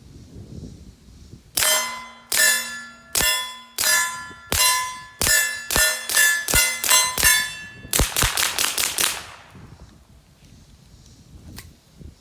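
Suppressed 9mm pistol (Palmetto State Armory Dagger with a Rugged Obsidian 45 suppressor) firing about a dozen shots at a steady pace, then a quick string of about six. Each early shot is followed by a ringing clang from a steel target.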